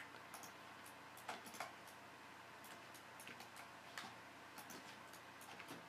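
Faint, scattered clicks of a computer mouse at irregular intervals, over near-silent room tone.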